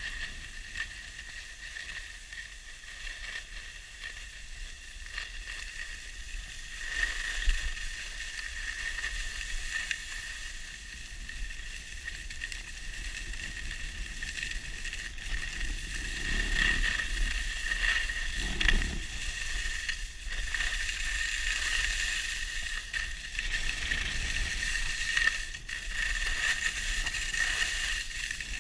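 Alpine skis sliding over groomed snow, a steady hiss with a few louder scrapes on the turns, over low wind rumble on the microphone. It gets louder about halfway through as the speed picks up.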